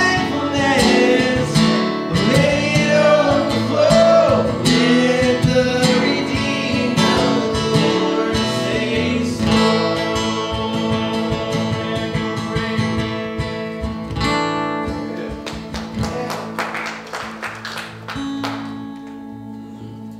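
A man singing while strumming an acoustic guitar over a steady held ambient pad from an Aerospace Audio Atmosphere pedal. The singing drops out partway through, leaving guitar and pad, and near the end the pad shifts to a new note as the pedal is switched to the song's new key.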